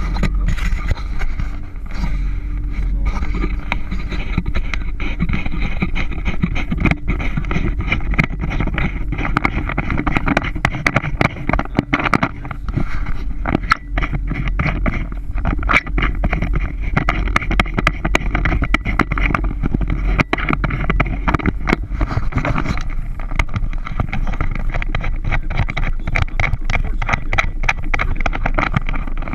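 Motorboat underway, its engine running with a steady low drone, overlaid by frequent sharp knocks and crackles throughout.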